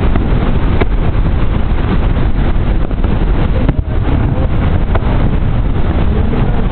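Loud steady rumbling noise, with two faint sharp pops from distant fireworks bursting, one about a second in and one about five seconds in.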